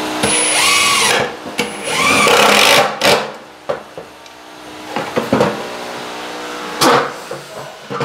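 Cordless drill-driver driving screws through an OSB board into timber battens: two runs of a second or so in the first three seconds, the motor whine rising in pitch. Then knocks from handling the board and a loud single thump about seven seconds in.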